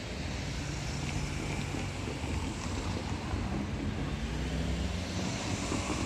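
Distant train running, a low steady hum that steps up in pitch about halfway through, under wind rushing on the microphone.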